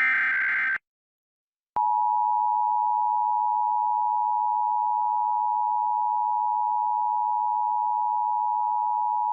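Emergency Alert System signal: the last one-second burst of the SAME header's data tones, then after about a second's pause the EAS two-tone attention signal (853 and 960 Hz together) sounding steadily. This is the alert that opens a required monthly test.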